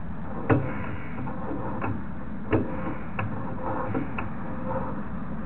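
Sewer inspection camera's push cable being reeled back: a handful of sharp clicks and knocks at irregular intervals over a steady background noise, the loudest about half a second and two and a half seconds in.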